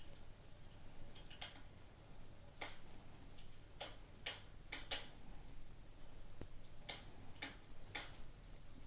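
Fireplace crackling: about nine sharp, irregularly spaced snaps and pops over a faint low hum.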